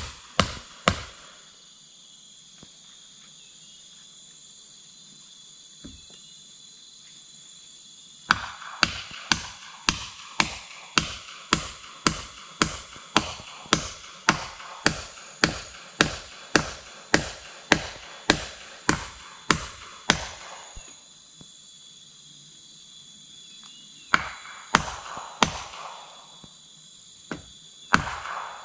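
Hammer blows on a timber hut frame, struck about twice a second. A few blows come at the start, then after a pause a long steady run of about two dozen, and a few more near the end.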